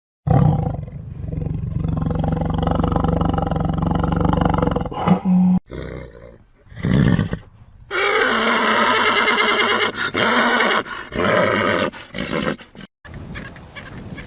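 A series of short animal-call clips joined by abrupt cuts: a long low growl, a few short calls, then a loud, drawn-out roar-like call, then a quieter clip near the end.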